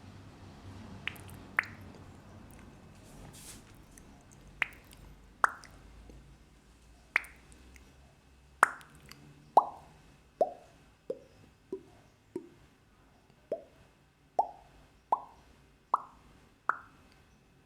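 A series of separate short pop sound effects, about one a second, each a quick pop whose pitch drops briefly. The pitch sinks from pop to pop to a low point about twelve seconds in, then climbs back up.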